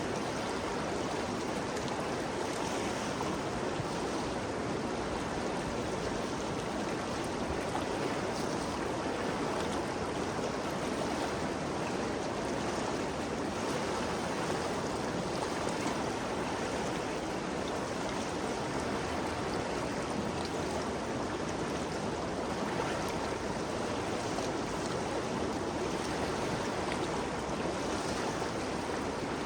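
Ganges River flowing, a steady rushing of moving water with no breaks or single splashes.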